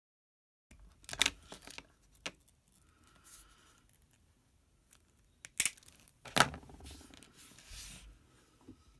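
Flush cutters snipping through the wire leads of a fused clapton vape coil: a few sharp snips, with quieter handling rustles between them.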